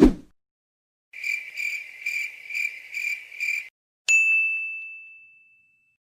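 Sound effects in sequence: a short low thump that falls in pitch, then about two and a half seconds of high trilled chirps pulsing about twice a second, then a single bright bell ding about four seconds in that rings on and fades over more than a second.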